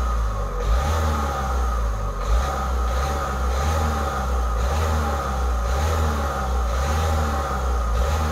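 Car engine revved by quick, repeated presses of the accelerator pedal, its note rising and falling a little more than once a second, heard from inside the driver's footwell.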